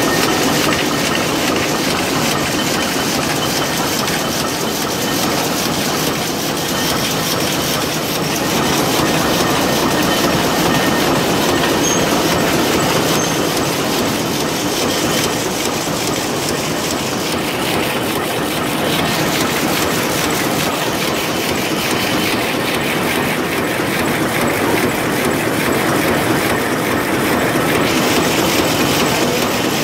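Rapier loom with electronic jacquard running and weaving: a loud, steady, rapid mechanical clatter.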